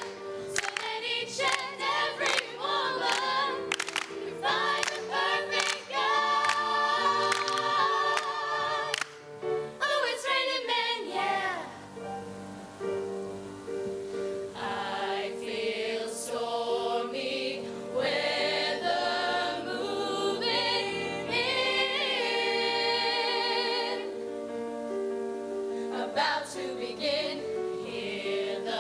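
Female choir singing in harmony, with rhythmic hand claps over the first several seconds, then sustained chords.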